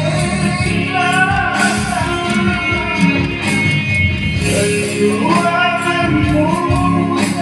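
Malay song: a voice singing a melody over instrumental accompaniment.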